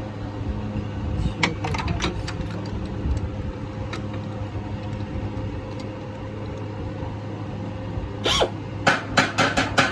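Toyota 1ZZ four-cylinder engine running at a steady idle. There are a few light clicks early, and a quick series of sharp clicks or taps near the end.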